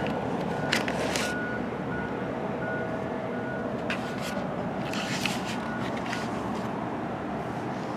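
A high electronic beep repeating about two or three times a second over a steady rushing background, stopping about two-thirds of the way through, with a few brief clicks.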